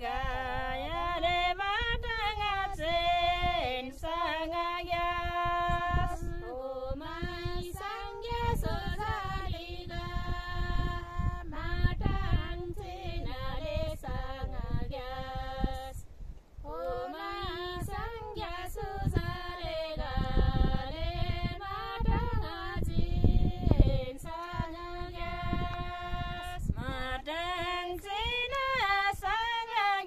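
A group of women singing an old Kinnauri folk song unaccompanied, in unison, with held notes and a short pause about halfway through. A low rumble runs under the voices in the middle part.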